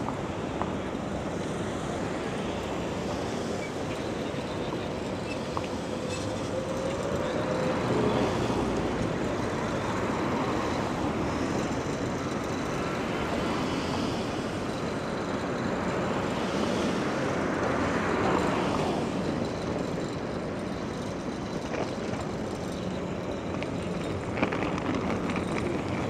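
Steady city vehicle noise, swelling twice as vehicles pass close by.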